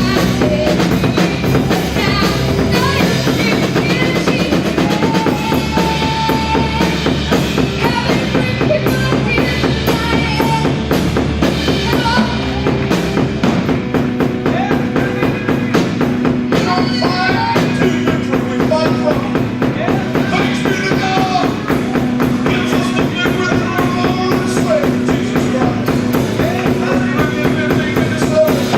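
Live gospel worship band playing an instrumental passage: a drum kit with busy, fast bass-drum and snare hits over bass guitar and keyboard. The deep bass thins out about halfway through while a steady keyboard tone carries on.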